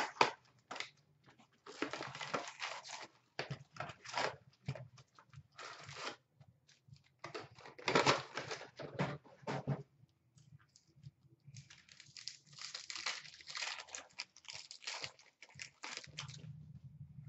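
Wrapping of a box of 2016-17 Upper Deck SP Authentic hockey cards and its packs being torn open and crinkled by hand, in several bursts of tearing and rustling with short pauses between them.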